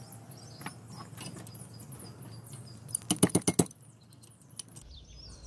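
A quick run of about seven sharp metal taps in under a second: a wrench striking the end of a screwdriver to drive the old 608Z bearing's stuck outer ring out of its housing. Birds chirp in the background.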